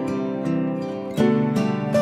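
Background instrumental music of soft plucked-string notes that start sharply and ring on over one another.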